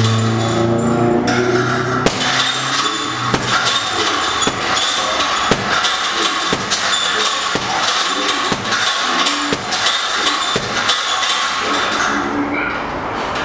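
Boxing gloves striking a leather heavy bag in quick, irregular punches over steady background noise.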